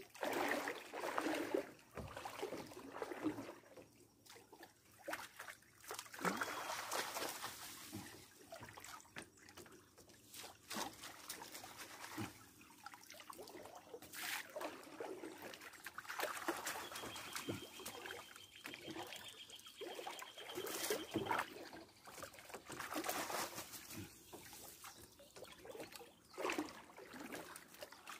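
Shallow river water sloshing, splashing and trickling in irregular bursts as an improvised sieve, a stove grate covered with mesh, is swept through the water at the grassy bank and lifted out to drain while sieving for shrimp.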